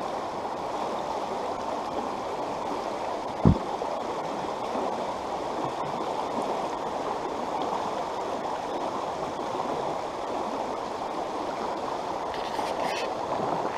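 Rushing stream: a steady wash of shallow water running over rocks in a riffle, heard close to the surface. A brief low thump about three and a half seconds in.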